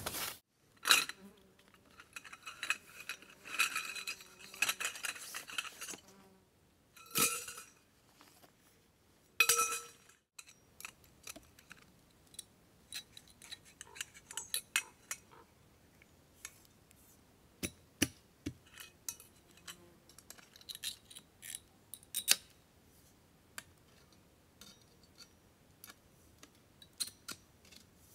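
Metal camp gear being handled, clinking and ringing a few times in the first half, then many scattered light clicks and taps.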